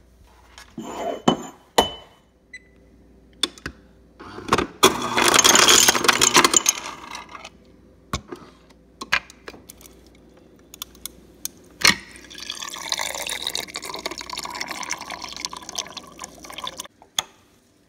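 Drinking glass clinking as it is handled, then a loud clatter lasting about two seconds, like ice cubes dropping into the glass, and about five seconds later water running steadily into the glass for about five seconds, ending with a clink.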